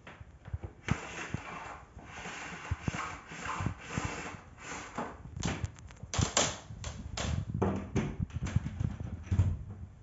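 Irregular knocks, clicks and rustling as a Bosch bagless canister vacuum cleaner's hose, wand and power cord are handled and the plug is pushed into a wall socket. The vacuum's motor is not running.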